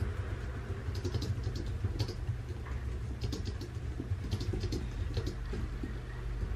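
Small scratching and ticking sounds of work with paper at a desk, scattered irregularly over a steady low rumble.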